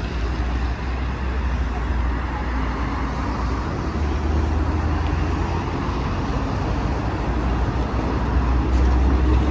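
City street traffic: cars and a city bus running through an intersection, a steady low rumble of engines and tyres that grows a little louder near the end as the bus passes close.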